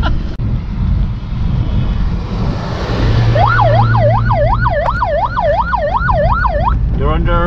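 Siren wailing over car cabin road and engine noise: from about three seconds in, its pitch sweeps up and down about two and a half times a second for some three seconds, followed by a few quicker rising whoops near the end.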